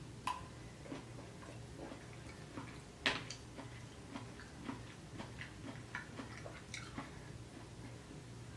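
Quiet, close-up eating sounds: soft, irregular mouth clicks and smacks while chewing a mouthful of noodles, with a sharper click about three seconds in.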